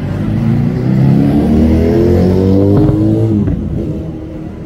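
A motor vehicle engine revving close by, its pitch rising over about three seconds before it fades away.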